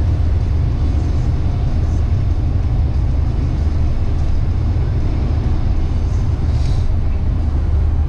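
Car driving at speed, heard from inside the cabin: a steady low rumble of engine and tyres on a snowy road. A short hiss about two-thirds of the way in.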